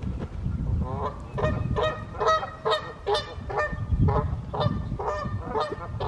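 Canada geese honking repeatedly, short calls at about two a second, starting about a second in.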